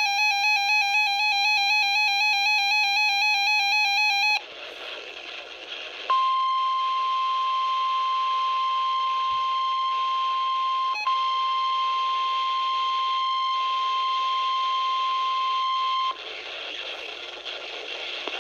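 NOAA Weather Radio warning alarm tone: a single steady high beep held for about ten seconds over radio static, with a brief dropout partway through. It is preceded by about four seconds of a warbling, buzzy electronic tone and then a short stretch of static.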